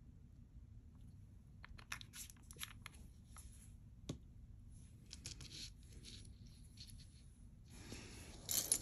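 Faint rustling and light clicks of small things being handled on a tabletop, with one sharper click about four seconds in. Near the end the rustling and scraping grow louder as the testing stone is taken in hand.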